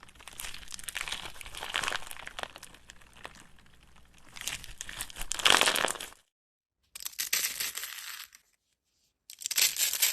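Crackling, crinkling sounds of something being stirred and mixed, full of small clicks, in several short bursts cut apart by two sudden gaps of dead silence.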